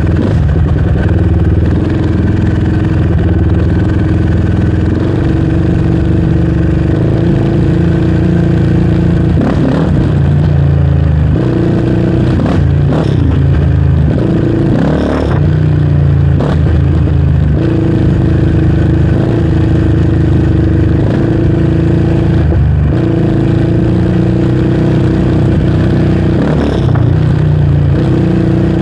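Yamaha Raptor 700R quad's single-cylinder four-stroke engine running under way on a dirt trail, its pitch stepping up and down several times with throttle and gear changes.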